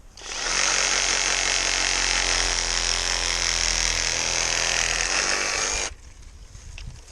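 Cerycose 20V cordless brushless reciprocating saw with a pruning blade cutting into hard, dead apple wood. It starts up just after the beginning, runs steadily at speed for about six seconds, then stops.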